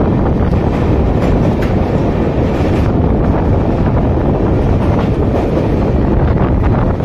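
Passenger train coaches running at speed: a loud, steady rumble of wheels on the rails with faint irregular clicks, as the coach crosses a river bridge. Heard from the open doorway, with wind rushing past the microphone.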